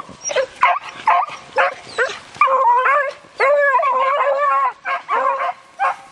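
Beagle hounds baying: short barks about twice a second, with longer drawn-out bawls in the middle. This is the hounds giving tongue as they work a rabbit's scent.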